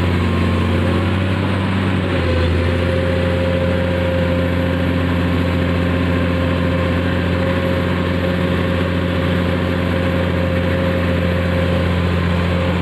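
Komatsu PC200 amphibious excavator's diesel engine running steadily, heard close up, with a constant low hum and a steady higher tone over it.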